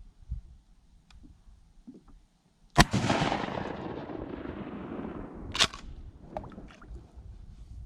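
A fishing reel cast from the kayak: a sharp click as the cast is released, then line paying off the spinning spool with a hiss that fades and falls in pitch over about two and a half seconds, and another click as the reel is engaged. A few light knocks come before it.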